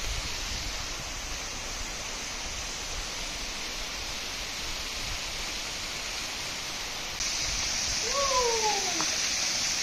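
Steady rushing of a waterfall pouring down a rock face. About seven seconds in the rush abruptly grows louder, and soon after a single short call falling in pitch sounds over it.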